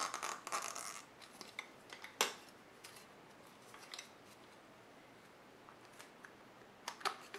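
Hard plastic clicking and rustling as a GoPro camera and its plastic packaging stand are handled. There is a burst of clicks at the start, one sharp click about two seconds in, and more clicks near the end, with a quiet stretch between.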